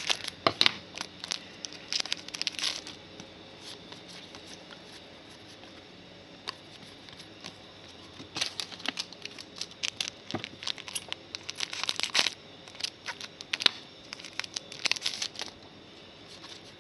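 Wrapper of a Donruss Soccer trading card pack being torn open and crinkled, then the cards rustling and sliding as they are handled. It comes in crackly bursts: once at the start, again about halfway through, and briefly near the end.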